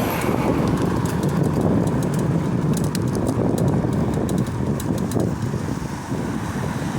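Wind buffeting the microphone: a steady low rumble, with a few faint clicks about halfway through.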